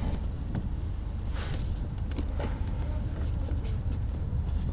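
Camera being handled and set down: a few faint knocks and rustles over a steady low rumble.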